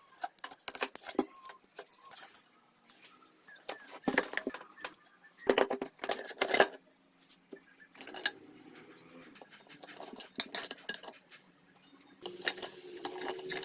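Small metal parts and hand tools clinking and clattering: a series of sharp clicks and knocks, in clusters with short pauses between them.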